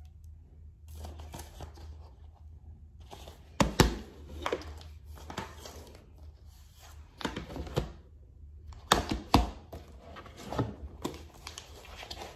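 Plastic multi-disc DVD case being handled: snapped open, and its hinged disc trays flipped through, giving a string of sharp plastic clicks and knocks with light rustling between them.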